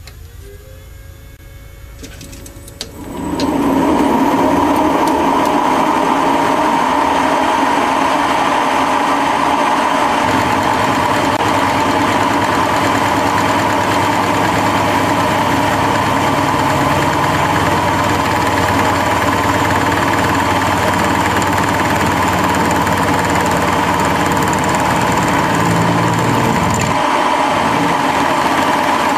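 A Boxford lathe starting up about three seconds in, then running steadily with a strong hum while a carbide tool faces a hardened tool-steel die.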